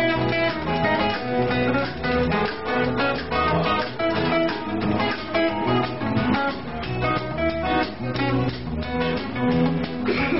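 Live acoustic guitars playing an instrumental passage: strummed chords with picked melody notes over them, in a steady rhythm.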